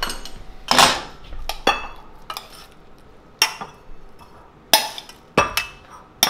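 A spoon clinking and knocking against a metal saucepan and bowl while cooked rice is scooped out and served. About ten separate, irregularly spaced clinks, some ringing briefly.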